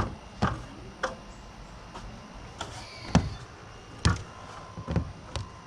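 Irregular sharp knocks and clicks, about eight of them with the loudest a little after three seconds in, from tools and hardware being handled while a light is mounted on an aluminum ladder roof rack.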